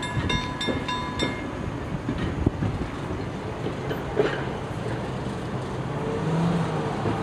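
Level-crossing warning bell dinging about twice a second, stopping about a second in, over the rumble of passenger coaches rolling across the crossing with a few wheel clicks on the rail joints. Near the end, the engines of waiting cars hum as they pull away.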